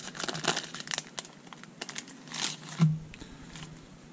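Clear plastic bag of Ultra Pro card sleeves crinkling as it is opened and handled, with a brief thump a little under three seconds in.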